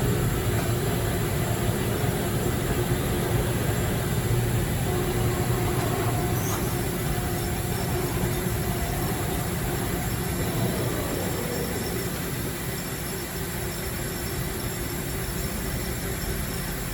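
Mori Seiki NT1000 CNC multi-tasking lathe running: a steady mechanical hum and whir with faint steady tones, one of which falls in pitch about ten seconds in.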